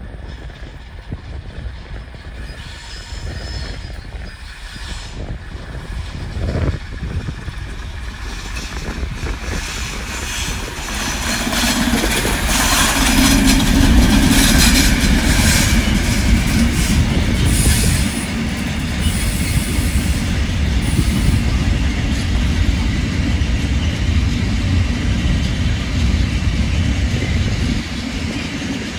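Diesel-hauled freight train passing. The six-axle diesel locomotive's engine grows louder as it approaches and is loudest as it goes by about halfway through. Then comes the steady rumble and clatter of hopper wagons rolling past.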